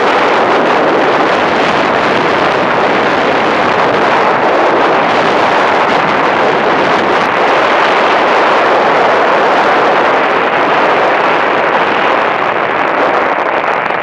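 Steady rushing wind and road noise from a moving vehicle, heard from on board as it drives along a paved highway.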